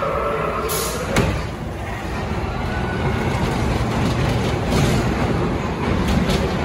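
Dark ride car rumbling and clattering along its track, with a short hiss just under a second in and a sharp knock about a second in.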